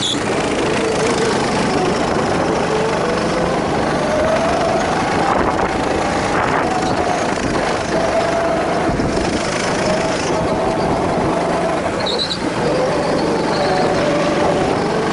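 Go-kart engine heard from the driver's seat, its pitch rising and falling as the throttle opens and closes through the corners, over a steady rushing noise.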